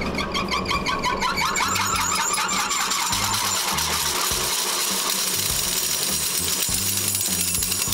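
Hosokawa Micron Pulverizer hammer mill's open rotor spinning below full speed and winding down, its swing hammers giving a rapid, repeating metallic clatter.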